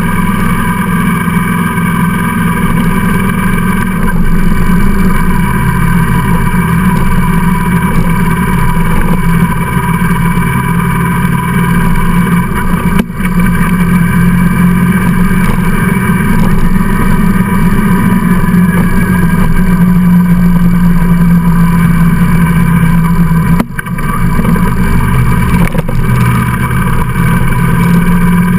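Vehicle engine and road noise heard on board at a steady cruise, with short dips in level about 13 seconds in and again near 24 seconds.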